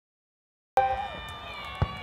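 Crowd of spectators cheering and whooping at a fireworks display, starting abruptly under a second in. A single firework bang comes near the end.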